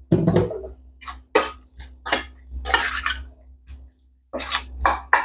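Metal spoon clinking and scraping against a stainless steel bowl as diced raw chicken is stirred with oil, in irregular strokes.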